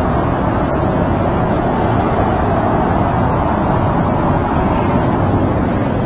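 Snowstorm wind blowing in a steady, deep rush that swells a little in the middle.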